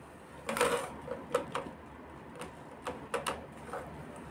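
Small clicks and taps of a metal locket being handled: a louder cluster about half a second in, then about eight lighter, irregular clicks.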